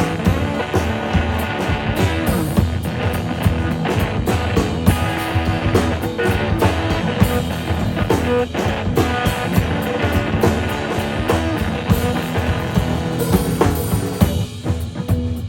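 Live band playing an instrumental passage, with guitar over bass and drum kit.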